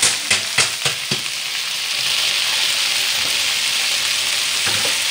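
Okra and other vegetables sizzling as they fry in a pan, with a spatula knocking against the pan about five times in the first second or so as it is stirred, then a steady frying hiss.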